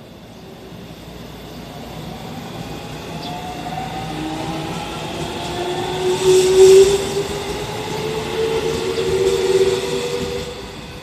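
JR 313 series electric train pulling away, its traction motors whining steadily upward in pitch as it speeds up. Wheel and rail noise is loudest about six to seven seconds in as the cars go by, and the sound falls away near the end.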